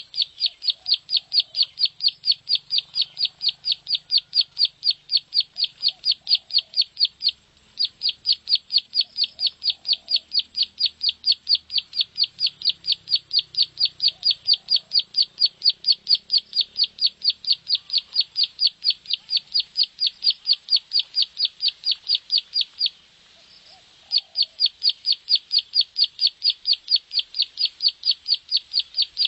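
Ciblek sawah (prenjak sawah), a field prinia, giving its long, rapid ticking "klik" call: an even run of sharp, high clicks at about four to five a second. The run breaks off briefly twice, once about seven seconds in and once for about a second near the end.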